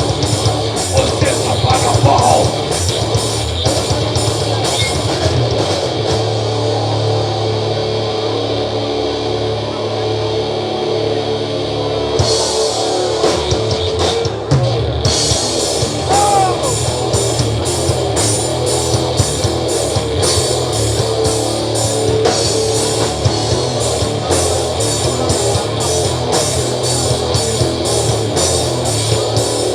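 Instrumental passage of a heavy rock song: electric guitar over a drum kit. The cymbal and drum hits thin out for several seconds about six seconds in, then come back.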